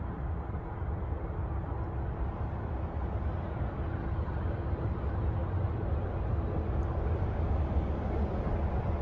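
Wind buffeting the microphone: a steady low rumble with no distinct events.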